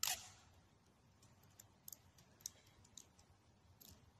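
Red sticky tape being pulled off its roll and wrapped around an orange. There is a short rip of tape at the start, then faint clicks and small handling sounds.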